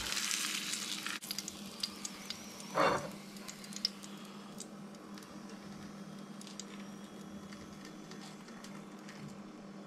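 Hot fat sizzling under a browned beef joint in a frying pan, dying away about a second in as the meat is lifted out. After that, faint spits and crackles from the nearly empty hot pan, with a brief clatter near three seconds.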